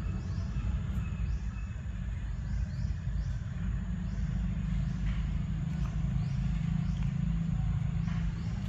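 Steady low rumble, the loudest sound throughout, under a faint outdoor background with a few faint high chirps.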